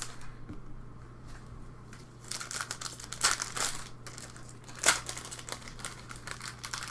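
Foil trading-card pack wrappers crinkling and rustling as they are handled and torn open, with irregular crackles from about two seconds in and one sharper crackle near the five-second mark.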